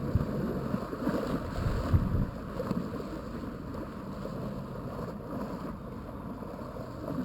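Wind rumbling on the microphone at the water's edge, a steady low noise, with a few louder bumps in the first two seconds before it settles.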